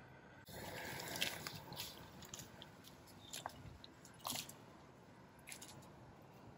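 Prawn heads and shells tipped from a bowl into boiling stock in a wok: a few soft plops and splashes, about four in the first four and a half seconds, over the faint steady bubbling of the stock.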